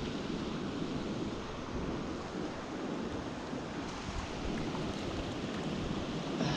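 Steady rush of a fast-flowing freestone mountain stream.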